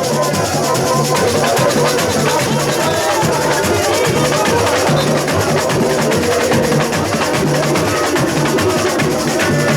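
Samba school bateria playing a driving samba rhythm: surdo bass drums pulsing steadily under a dense, continuous rattle of snare drums and shakers.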